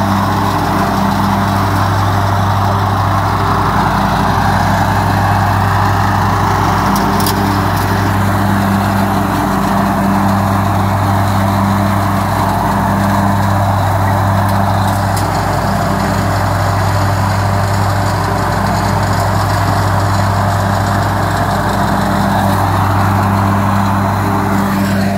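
John Deere riding lawn tractor's engine running steadily as the tractor drives across the grass: a constant low drone with a hiss of noise above it.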